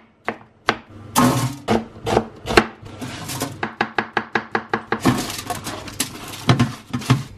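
A kitchen knife chopping bell pepper and zucchini on a plastic cutting board, in quick, even strokes of about five a second. Near the end the slices are scraped off the board into a foil-lined baking tray.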